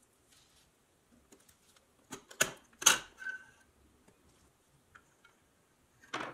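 Needle-nose pliers working a rusty steel axle out of a tin toy car, with sharp metal clicks. A cluster of clicks comes about two to three seconds in, followed by a brief squeak, and there is another click near the end.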